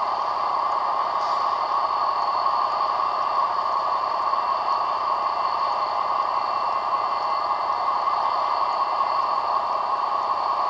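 EMD SD40 diesel locomotive, with its 16-cylinder two-stroke engine, running as it rolls slowly past, heard on an old film soundtrack as a steady, muffled noise without a clear engine beat.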